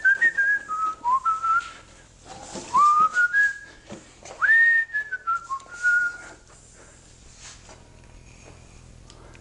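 A man whistling a short tune in three phrases, each opening with an upward slide, with a few knocks and rattles underneath.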